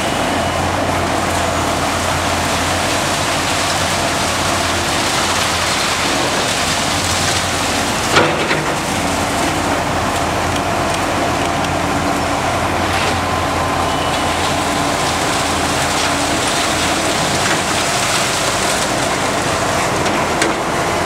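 Diesel demolition excavators running under load as they tear apart a concrete building, with a steady rush of crumbling and falling rubble. One sharp crack about eight seconds in, and a smaller knock near the end.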